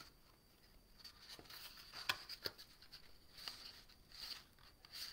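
Faint rustling and light handling of folded cardstock being shaped and pressed by hand, with a few soft clicks.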